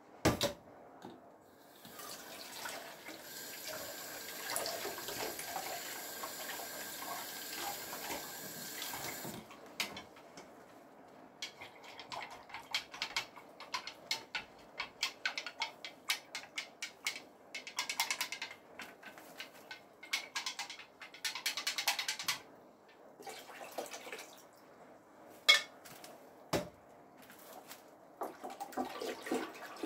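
A kitchen tap runs into a stainless steel sink for about seven seconds. Then water sloshes and splashes irregularly as a batik fabric is worked by hand in a basin to wet it before dyeing. There is one sharp knock near the end.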